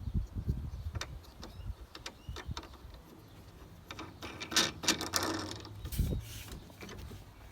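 Clicks, knocks and a rattling stretch around the middle as plastic and metal handle parts and bolts of a lawn mower are handled and fitted together during assembly, with a single heavier knock near the end.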